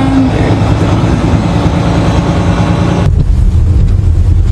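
Loud, steady low rumble of a vehicle engine with wind noise over it. About three seconds in, the sound changes abruptly to a deeper, duller rumble with the hiss gone.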